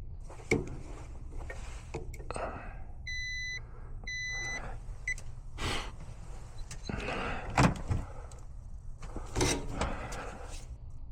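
Clicks, knocks and rustling of hands working on equipment, with two half-second electronic beeps at one steady pitch about three and four seconds in.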